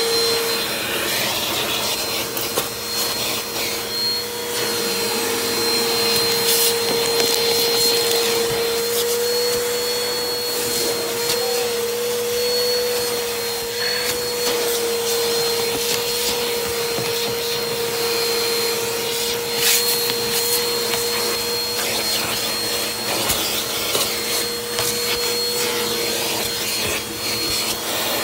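Vacuum cleaner running with a steady, high motor whine as its hose and crevice nozzle suck over car carpet and seat fabric, with a few brief knocks of the nozzle against the interior.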